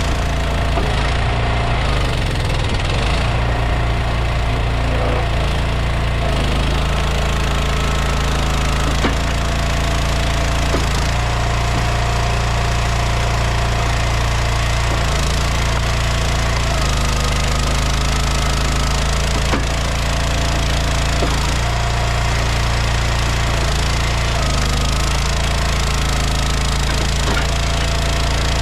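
An engine-driven log splitter at work on pine logs: the engine runs steadily, and its note shifts every few seconds as the splitter takes and sheds load, with a few faint cracks.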